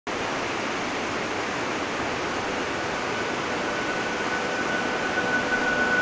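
Steady rush of running water, with a faint held musical tone fading in over the last few seconds.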